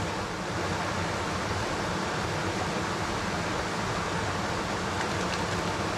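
Steady rushing of river water flowing over a rocky ledge, an even hiss with no breaks.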